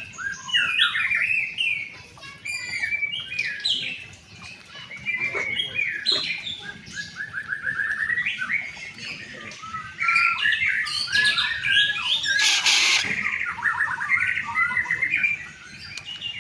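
A white-rumped shama singing a long, varied song of quick chirps, rapid trills and whistled phrases, with a short harsh noisy burst about three-quarters of the way through.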